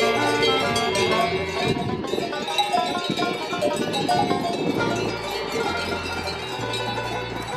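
Cowbells clanking irregularly on a grazing herd of cattle, mixed with background music that holds steady notes.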